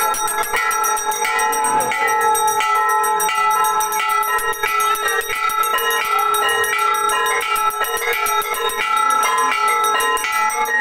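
Temple bells rung rapidly and without pause, the strikes overlapping into a continuous clangour of several sustained ringing tones, as at an aarti.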